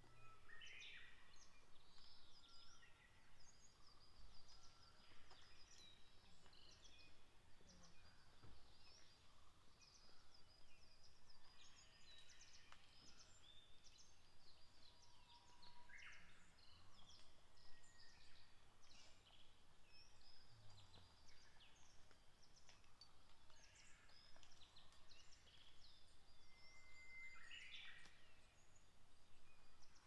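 Faint, high-pitched songs and chirps of several small forest birds, overlapping and scattered, over a quiet woodland background.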